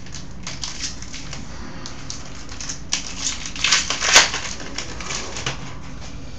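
Trading-card pack wrapper crinkling and cards being handled as the next pack is opened: a run of short, crisp crackles, loudest about four seconds in.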